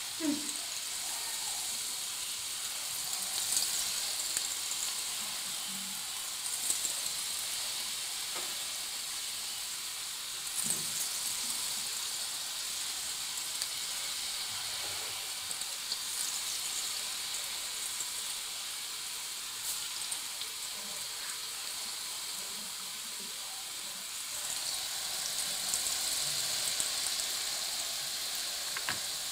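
Batter-coated green chillies deep-frying in hot oil in a kadai: a steady sizzle with scattered small crackles and clicks, a little louder near the end.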